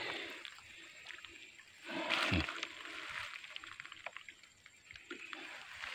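Bamboo eel trap (bubu) being handled in shallow water: faint sloshing and small knocks and clicks of the slats, with a louder slosh about two seconds in.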